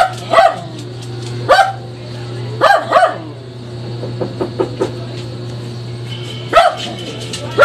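A dog barking: short single barks about a second apart, then a gap of a few seconds before two more near the end.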